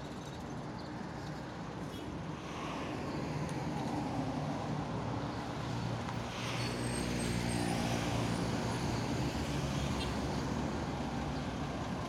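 Diesel engine of a TULUS bus approaching and pulling up at a roadside stop, getting louder as it nears, with a short hiss about six seconds in, over passing road traffic.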